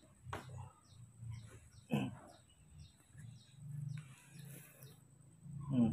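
A small bird chirping over and over, about two short high chirps a second, with two brief louder cries, one about two seconds in and one near the end.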